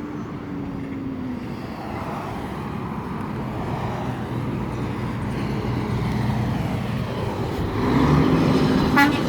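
Semi trucks approaching and going by, a low engine drone and road noise growing steadily louder. A short truck horn honk sounds about nine seconds in.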